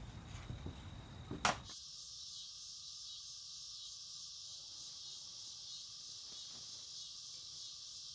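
A short sharp sound about a second and a half in, then a steady high chirring chorus of night insects.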